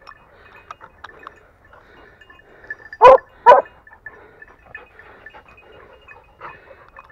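Hunting dog barking twice, about half a second apart, around three seconds in, over faint scattered rustling in the grass.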